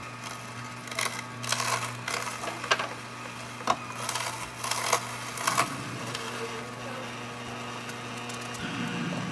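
Omega 8004 masticating juicer's motor running with a steady low hum. For the first several seconds, produce being pushed down the feed tube with the plunger gives a series of crunching clicks, then only the hum remains.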